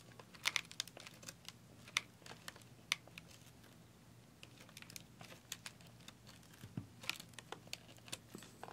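Light crinkling and irregular sharp ticks, a few a second, from fingers and a small bottle of coloured sand handled on a sticky sand-art board, with a brief cluster of clicks about seven seconds in.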